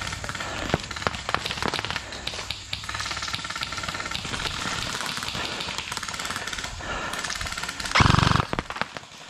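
Airsoft guns firing bursts in an exchange of fire, a rapid mechanical rattling and clicking, with a loud short burst close by about eight seconds in.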